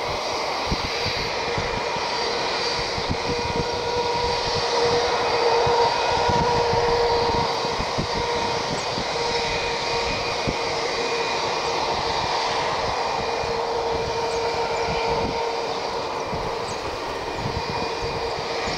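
Airbus A320's twin jet engines at taxi power: a steady whine with several held tones over a rushing hiss. It swells a little about five seconds in, then eases back.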